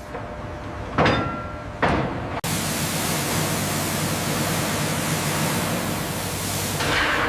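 Two short knocks, then a loud, steady hiss that cuts in suddenly and ends with a brief surge.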